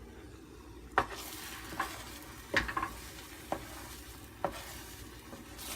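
Egg scramble of whole egg and egg whites sizzling in a frying pan while being stirred. A utensil knocks and scrapes against the pan about once a second.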